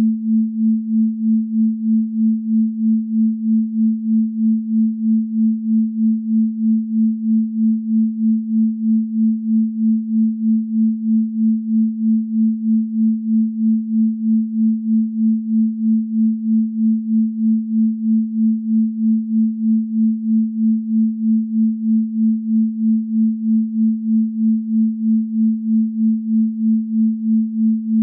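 Pure sine tone at 221.23 Hz, a low hum just above the A below middle C, held steady with an even pulsing in loudness a few times a second.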